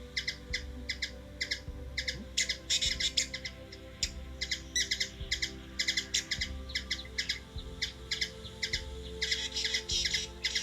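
A bird chirping over and over in short, high notes, about three a second, with busier, louder clusters around three seconds in and again near the end.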